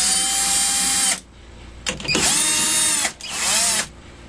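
Power drill with a socket extension driving down the through bolts of a GM CS144 alternator in three short runs, its motor pitch rising and falling each time. The bolts are run almost down, to be finished by hand.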